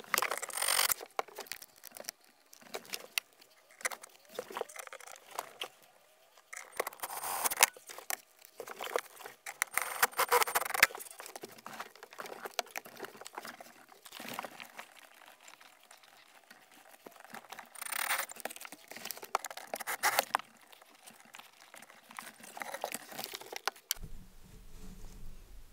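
Cordless impact driver driving screws in several short runs of about a second each, with handling and rustling noise between them.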